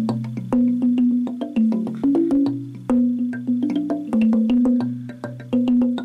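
Twelve-key wooden tongue drum of canary wood and kingwood, tuned to a B minor Celtic scale, played with ball-headed mallets: a quick run of struck notes that ring on, with a low tone sounding beneath.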